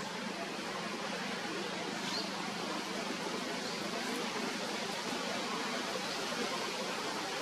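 Steady, even outdoor background hiss, with a few faint short high chirps.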